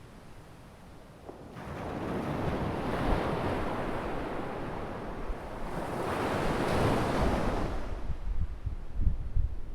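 Ocean surf: waves breaking and washing in, swelling twice, from about a second and a half in and again around six seconds. Low gusty rumbling of wind on the microphone near the end.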